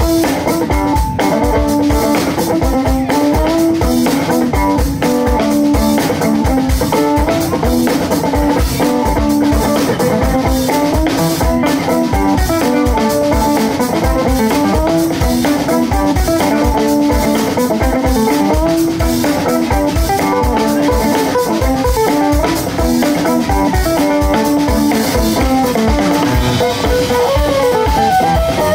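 Live instrumental music from an acoustic guitar, fiddle and drum kit playing together, the guitar and fiddle carrying quick melodic lines over a steady drum beat.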